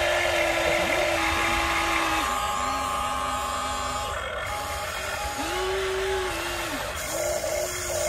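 Electric motors of radio-controlled model excavators, including a Huina 1593, whining as the boom, arm and bucket move. The whine starts and stops several times, sliding in pitch at each start and stop, over a steady higher hum.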